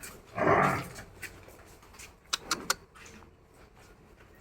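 A short, loud animal sound about half a second in, followed a little past the middle by a few sharp clicks or knocks.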